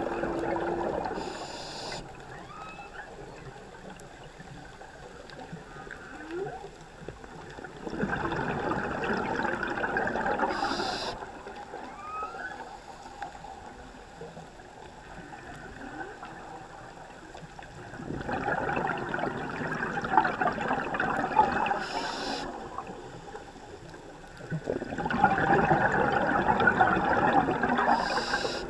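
Humpback whale song carried through the water: faint gliding moans and whoops between the breaths. Over it, a scuba diver's regulator sends out bubbles four times in rushes of about three seconds, each followed by a short hiss of inhaling.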